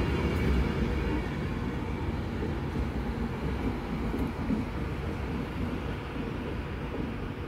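Class 390 Pendolino electric train rumbling past on the rails and moving away, the noise fading steadily as its rear cab recedes.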